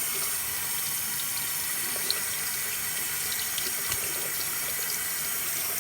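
Bathroom sink tap running steadily, water splashing into the basin as slime is rinsed off a small plastic toy piece, with a few faint knocks against the basin.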